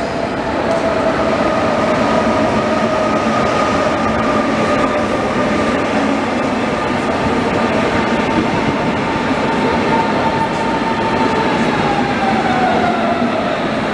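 Red Deutsche Bahn regional train pulling into the platform: a continuous rail rumble, louder from about a second in, with a high whine over it that falls in pitch near the end as the train slows.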